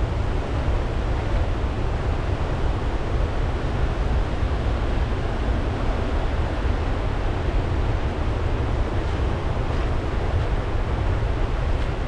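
Large river waterfall rushing steadily: a dense, even noise with a heavy low rumble.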